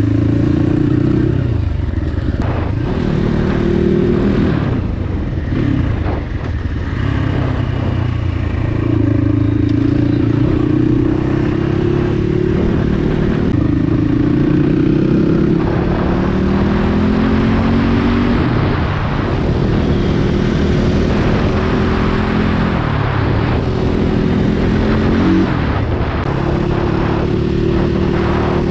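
Dirt bike engine running under way as it is ridden. Its pitch climbs as it accelerates and drops back at each gear change, several times over.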